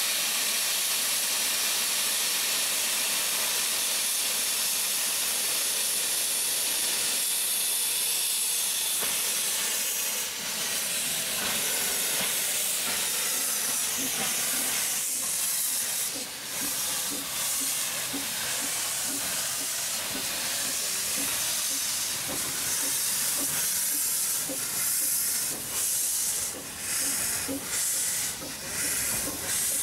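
Small narrow-gauge steam locomotive letting off a loud, steady hiss of steam, then moving off: from about halfway a regular chuffing beat comes in under the hiss as it pulls past.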